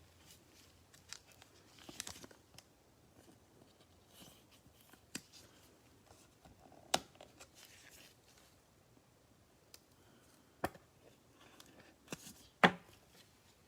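Trading cards and a foil card pack being handled: scattered light clicks, taps and crinkles of the wrapper and card edges, with a few sharper taps, the loudest near the end.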